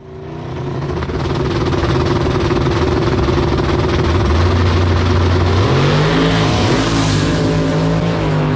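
Turbocharged LS V8 drag-racing truck engine running loud, its pitch stepping up about two-thirds of the way through.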